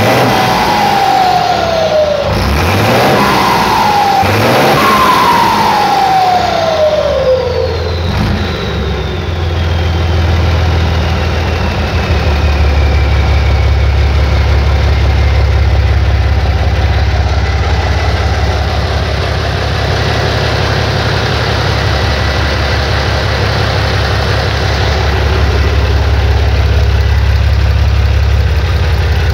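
Mercedes-Benz OM 366 LA turbocharged inline-six diesel engine revved up three times in the first eight seconds, falling back in pitch after each, then settling into a steady idle. A high whistle, the turbo spinning down, slides lower and fades as the engine settles.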